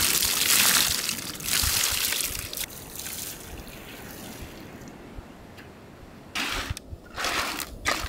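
Water splashing and sloshing, loudest in the first couple of seconds, then quieter, with a few short splashes near the end.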